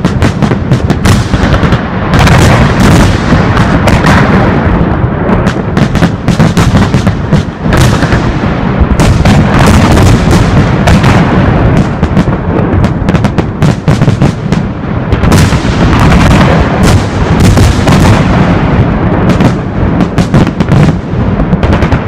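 Fireworks salute at close range: a dense, unbroken run of loud bangs and crackles, many per second, starting abruptly.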